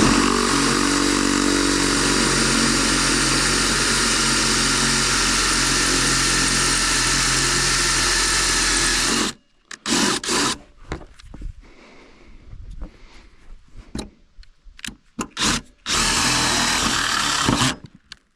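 Power drill drilling out a rivet that holds a snowmobile's snow flap. It runs steadily for about nine seconds, then comes a stretch of short bursts and knocks, and a second run of about two seconds near the end.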